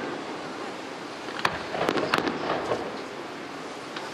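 Aerial firework shells bursting: a cluster of sharp bangs and crackles between about one and a half and three seconds in, over a steady background noise.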